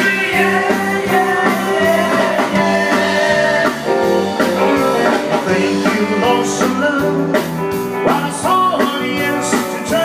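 Live band music: a man singing into a microphone over guitar and a drum kit, with a steady beat throughout.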